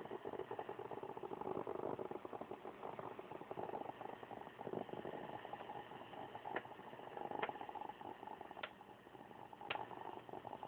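Grundig S350DL shortwave radio receiving a rough, rapidly pulsing noise signal through its speaker, with four sharp clicks in the second half.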